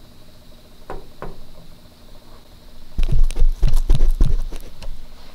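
Handling noise from the camera bumping against the window glass and frame: a quick run of irregular knocks and heavy thumps from about three seconds in, lasting under two seconds. Two short falling squeaks come about a second in.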